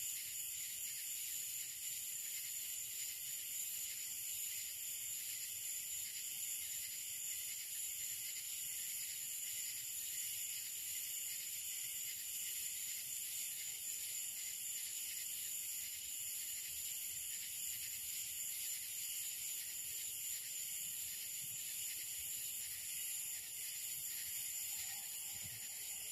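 Steady high-pitched chorus of night insects, several shrill drones layered together with a fast flutter in one of them.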